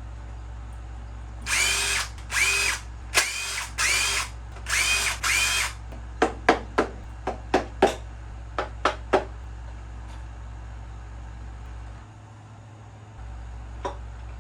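A power drill or driver run in five short bursts, its motor whine rising and falling in pitch each time, while parts of the 4G63T engine's bottom end are being taken apart. It is followed by a quick run of about a dozen sharp knocks, with a single knock near the end, over a steady low hum.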